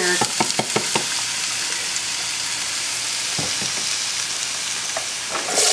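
Diced onions and sliced carrots sizzling in hot canola oil in a nonstick frying pan, a steady hiss. A few light knocks sound in the first second and one more about three and a half seconds in, and the sizzle grows louder near the end.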